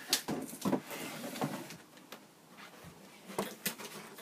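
Cardboard box and packaging being handled: several short, sharp knocks and scrapes, with two quick taps close together about three and a half seconds in.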